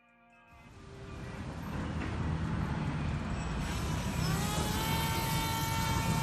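Small RC plane's A2212 2200Kv brushless motor and 6-inch propeller spooling up. A rushing noise builds over the first two seconds, then about four seconds in a whine rises in pitch and settles into a steady high tone.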